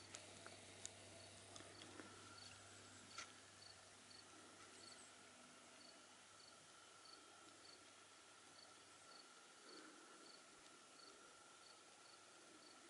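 Faint insect chirping in a grassy meadow: a short high pip repeating about twice a second, over a steady faint high whine, with a single click about three seconds in.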